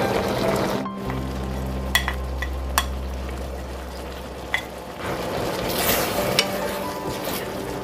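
Thick spicy gochujang sauce bubbling and sizzling in a pan around braised eggs, while chopped green onion and chili are added and stirred in. A few sharp clicks of utensils against the pan.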